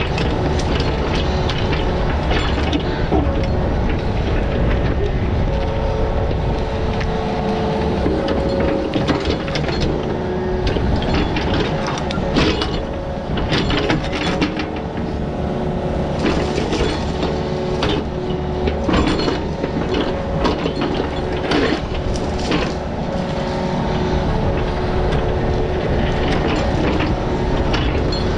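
Excavator's diesel engine working under load, with a steady hydraulic whine. From about eight seconds in until about twenty-three seconds, repeated clanks and scrapes sound as the bucket digs through rocky ground.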